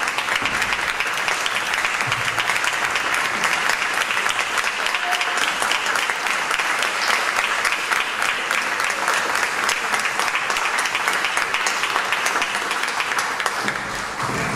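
Audience applauding: sustained, dense clapping at an even level.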